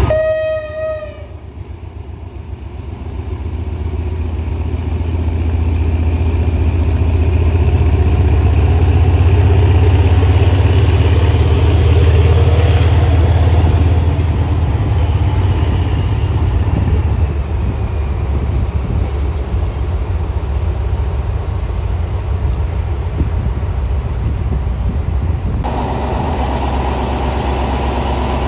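A diesel locomotive's horn gives one short toot, then its engine rumble builds and runs loud, deep and heavy as the locomotive works during shunting. Near the end the sound changes abruptly to a steadier, lighter running.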